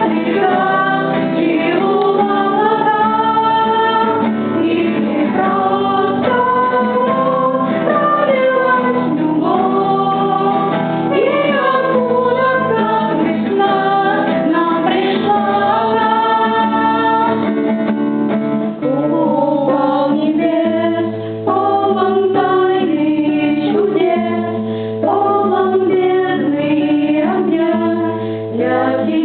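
A song: a woman's voice singing held, gliding notes over a guitar-like accompaniment with a steady bass line.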